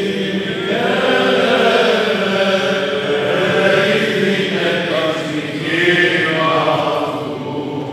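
Greek Orthodox clergy singing Byzantine chant, men's voices holding long notes that move slowly from pitch to pitch.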